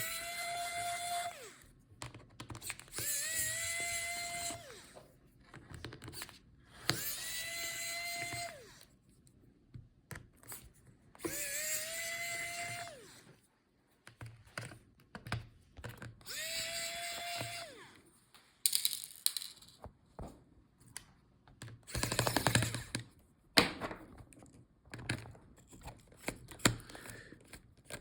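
Small electric screwdriver backing out the laptop's motherboard screws: five short runs of a second or two each, its whine rising as it spins up and dropping as it stops. In the later part, scattered clicks and rattles of handling, with a louder rustling stretch about three-quarters of the way through.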